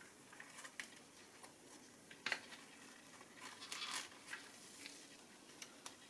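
Faint crinkling and rustling of a thin printed dial overlay and transparency-film strips being slid under the needles of a car instrument cluster by gloved fingers. Scattered light clicks run through it, the sharpest about two seconds in, and a longer scraping rustle comes around four seconds in.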